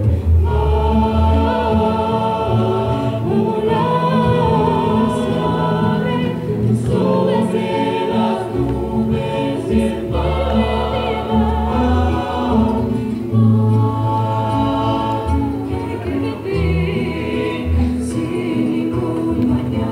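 A rondalla performing: many voices singing together in harmony over acoustic guitars and a double bass.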